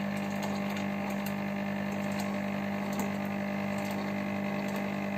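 Electric ice cream maker's motor running with a steady, even hum as it turns the churning paddle.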